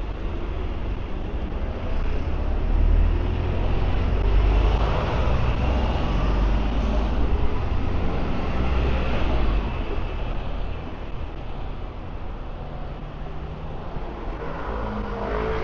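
Road traffic on a city street: a motor vehicle passes close, its low engine rumble and tyre noise swelling about two seconds in and fading after about ten seconds.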